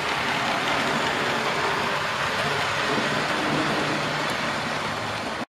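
00 gauge model trains running on the layout's track: a steady rushing rattle of wheels on rail with a faint low hum under it, which cuts off suddenly near the end.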